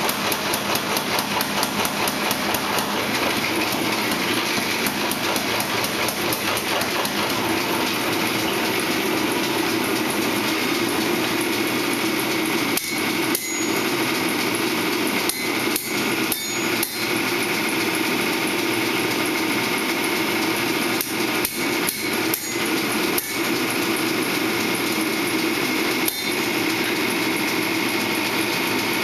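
Hammer blows on steel while a spearhead is forged: a fast run of strikes, several a second, at first, then scattered single blows over a steady background noise.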